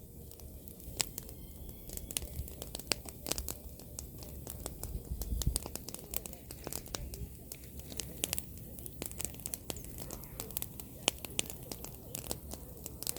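Bonfire of pruned apple branches crackling and popping: many sharp, irregular snaps over a low rumble.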